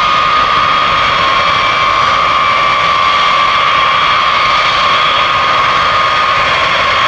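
B-52H Stratofortress taxiing, its eight Pratt & Whitney TF33 turbofan engines running at low power: a loud, steady jet whine with one strong high tone over a broad rush.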